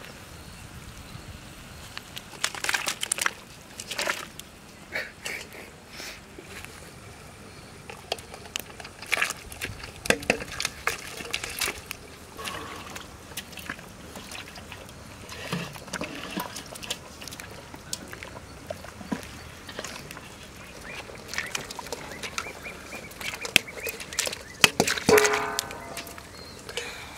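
Scattered short crackles, clicks and knocks over a steady low hiss, around a large steel pot of fish curry steaming over a wood fire. A short pitched honk sounds near the end.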